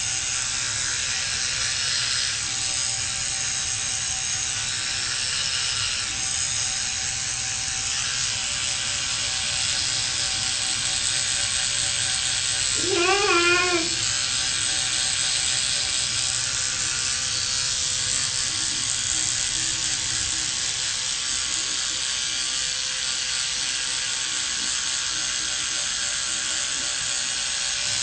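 Electric toothbrush buzzing steadily while brushing teeth, the sound muffled by the mouth. About halfway through, a short wavering vocal sound is heard once.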